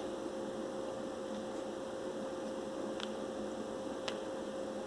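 Steady electrical hum with hiss in the background, and two faint ticks about three and four seconds in as a tarot card is handled.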